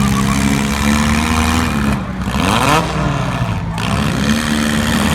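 Four-cylinder demolition derby car engines revving hard, the pitch sweeping up and down about two seconds in over a steady engine din.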